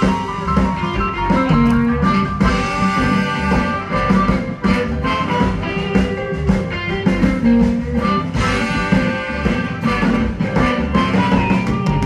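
Live blues band playing an instrumental stretch: guitar lines over bass and drums with a steady beat.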